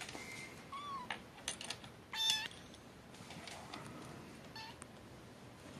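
Young kittens meowing: a few short, high-pitched mews, the loudest about two seconds in, with some light clicks between them.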